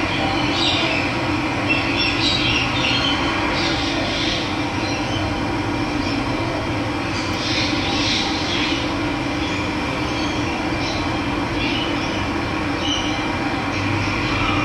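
Steady rush of running water, with small birds chirping now and then over it.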